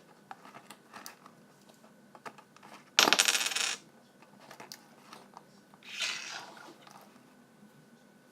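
A coin dropped into a homemade vending machine, rattling loudly for under a second about three seconds in, then a softer rattle about three seconds later, with light handling clicks before.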